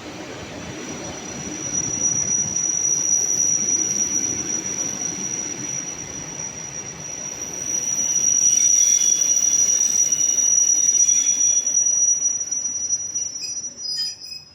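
ЭП2ДМ electric multiple unit running past on the rails. The wheel rumble swells about two seconds in and again about eight seconds in. A steady high squeal from the wheels is held throughout, and the sound falls away sharply near the end.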